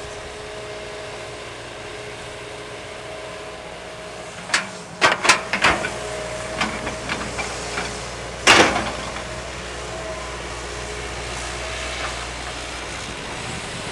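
Hitachi hydraulic excavator running steadily while working sand, with a burst of sharp metallic clanks about four to six seconds in, a few lighter knocks, then one loud clank a little past the middle.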